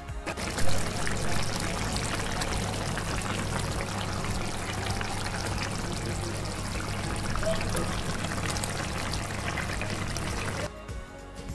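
Fish curry gravy boiling hard in a pan: a dense, steady bubbling and popping. It gets briefly louder near the start and cuts off suddenly near the end.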